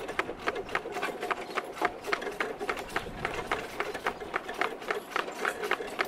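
Horse walking: a steady, even clip-clop of hoof strikes, several a second.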